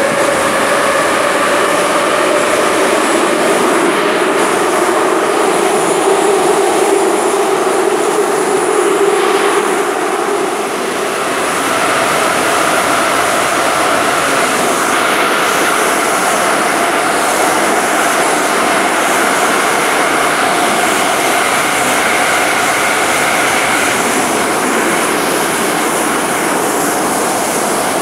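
Moscow metro train running at speed, heard from inside the passenger car: a steady loud roar of wheels on rail with the whine of the traction motors. The whine shifts pitch about ten seconds in.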